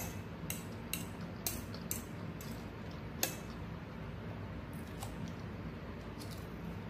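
Cutlery clicking against a dish while eating, with several sharp clicks in the first half, the loudest about three seconds in, over a steady low hum.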